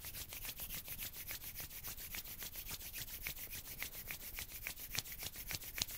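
A pair of palms rubbed briskly together, making a fast, even rhythm of dry skin-on-skin strokes.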